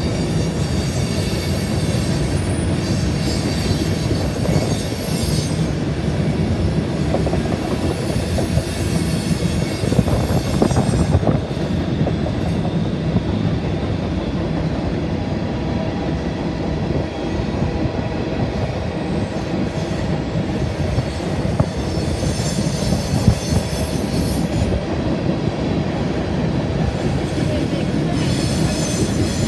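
CSX freight cars rolling steadily across a steel girder railroad bridge, a continuous heavy rumble of wheels on rail. High-pitched wheel squeal comes and goes at times.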